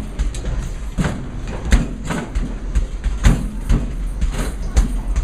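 Coin-operated arcade basketball game in play: balls knocking against the backboard and rim in a quick, irregular string, over a steady rumble of balls rolling down the return ramp.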